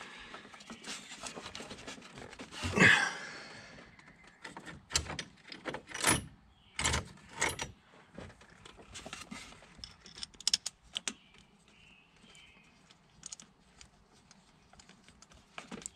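Hands working in an engine bay, refitting an ignition coil and pushing its plastic wiring connectors home. Scattered sharp clicks and knocks, with a louder rustling thump about three seconds in.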